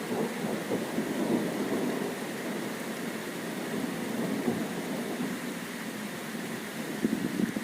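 Thunderstorm with steady rain and a low rumble, growing a little louder near the end.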